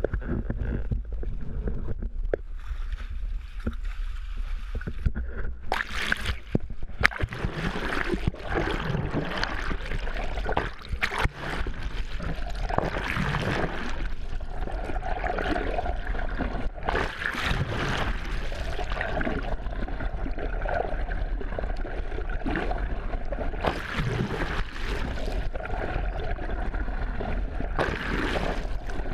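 Water rushing and gurgling around a GoPro's waterproof housing as it is held underwater on a pole, over a steady low boat rumble. The first few seconds, with the camera still above the surface, are quieter wind and hull noise.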